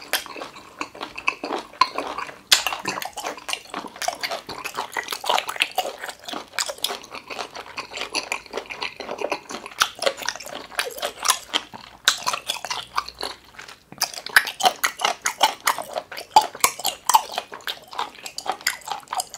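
Close-miked wet chewing of a mouthful of food: a dense, unbroken run of sticky mouth clicks and smacks.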